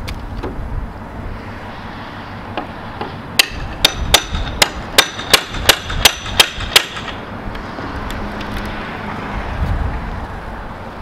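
About ten hammer blows in quick succession, roughly three a second, metal on metal with a short ringing tone, as a steel pry bar is driven in to pry a wood-framed stud wall apart.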